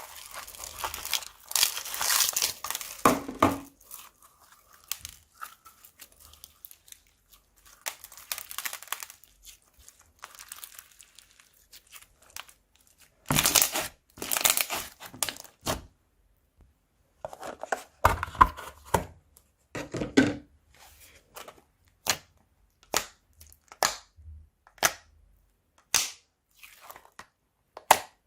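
Crunchy slime being mixed and squeezed by hand, crackling and crunching in irregular bursts. In the second half the sound turns into a string of short sharp pops, about one a second.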